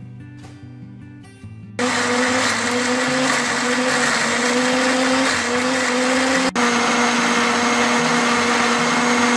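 Philips countertop blender running steadily, puréeing a yellow turmeric spice paste with water. It switches on abruptly about two seconds in, with a momentary break about six and a half seconds in.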